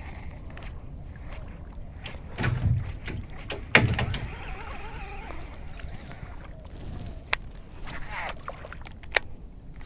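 Low wind rumble on the microphone, with two dull knocks about two and a half and four seconds in and two sharp clicks near the end, from handling fishing tackle in a small skiff.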